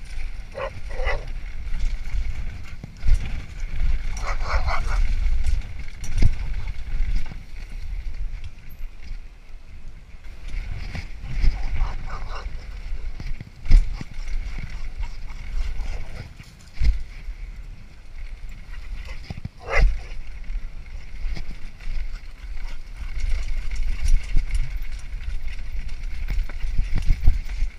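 Wind buffeting and rumble on a fast-moving action camera, with knocks and rattles from bumps along a dirt trail. A few short dog barks come through, about a second in, around four to five seconds in, and twice later.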